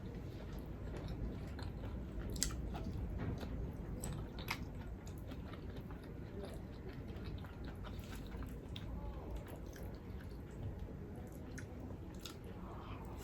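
Close-miked chewing of food during a mukbang, steady and wet, with a few sharp little clicks from the mouth or utensils.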